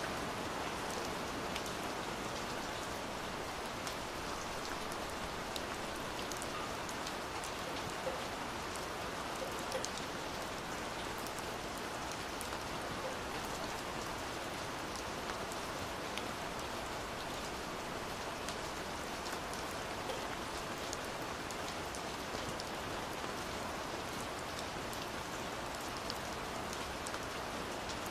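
Steady heavy rain falling on window glass, a constant hiss dotted with many small sharp drop ticks.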